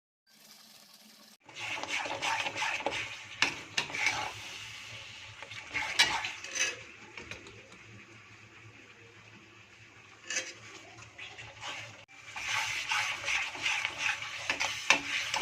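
Stirring in a cooking vessel: a utensil scraping and clinking against it, with repeated sharp clicks, in two busy stretches with a quieter pause in the middle.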